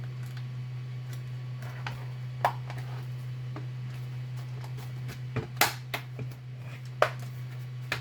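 Plastic parts of a Nerf Zombie Driller blaster clicking and knocking as it is fitted back together around a cylinder: a scatter of sharp clicks, the loudest about two and a half, five and a half and seven seconds in, over a steady low hum.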